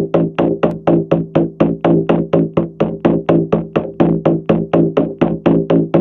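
Shamanic journey drum beaten in a steady, even rhythm of about four strokes a second, each stroke ringing into the next. This is the repetitive journey drumbeat meant to bring the listener into a theta state.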